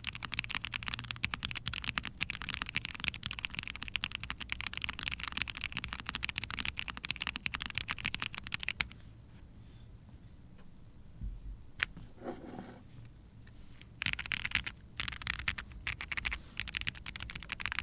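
Typing on a mechanical keyboard fitted with Bluebonnet linear switches (nylon housings, POM stem, heavy 72 g springs) on a POM plate with GMK keycaps: a fast, dense run of keystroke clacks. Typing stops for about five seconds in the middle, broken by one sharp click, then comes back in short bursts.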